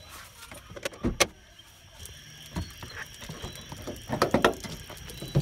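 Clicks and clunks of an Acura RSX's latches being worked by hand: two sharp knocks about a second in, then a quick cluster of clicks near the end as the hood's safety catch is released from under its front edge.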